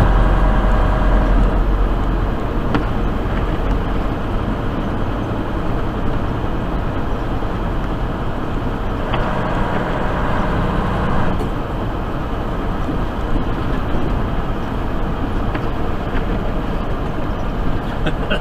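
Tractor-trailer's engine and tyre noise heard from inside the cab while driving on a snow-covered highway, a steady drone. The hiss grows brighter for a couple of seconds about halfway through as another tractor-trailer runs close alongside.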